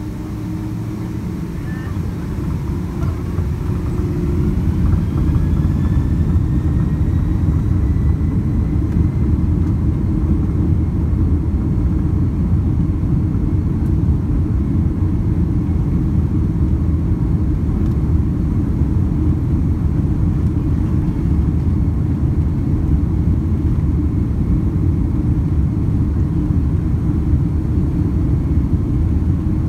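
Boeing 767-300's twin turbofan engines spooling up to takeoff thrust, heard from inside the cabin: a whine rises in pitch and the sound grows louder over the first few seconds, then settles into a steady loud rumble for the takeoff roll.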